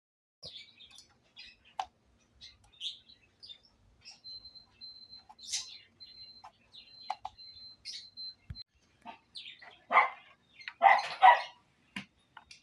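Small birds chirping on and off, then a dog barking several times about ten seconds in.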